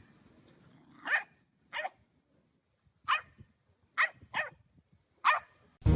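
A dog barking: six short, single barks spaced irregularly.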